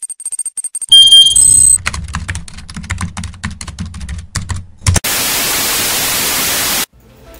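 Computer-hacking sound effects: faint quick ticking, then a loud electronic tone about a second in, then about three seconds of rapid keyboard-typing clicks over a low hum. These give way to a loud burst of TV static lasting about two seconds that cuts off suddenly.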